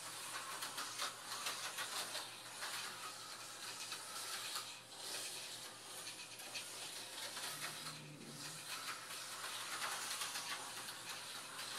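Tyco HO-scale slot car on a 440x2 chassis running laps of a plastic track: a steady hissy running noise with fine rattling from the car's motor and its wheels and pickups on the rails, rising and falling as the car moves nearer and farther away.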